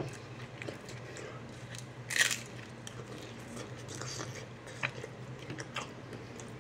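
A bite into a crispy fried corn tortilla tostada shell about two seconds in, one loud crunch, followed by crunchy chewing with scattered short crackles.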